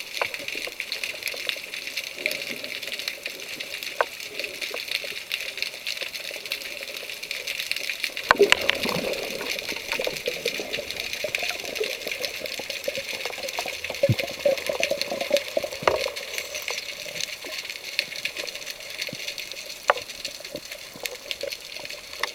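Underwater sound around a rocky sea-bottom: a steady crackle of countless small clicks over a hiss, with louder rushing water and a few knocks about eight seconds in and again around fourteen to sixteen seconds in.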